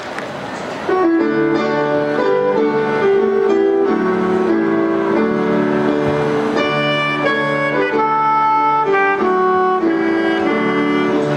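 Alto saxophone playing a slow melody with accompaniment, starting about a second in as the tail of applause dies away.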